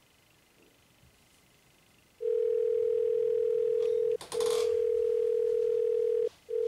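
Telephone ringback tone heard while waiting for the call to be answered. It is a loud, steady, single-pitch beep that starts about two seconds in and comes in stretches of about two seconds, each separated by a short break. A brief crackle comes at the first break.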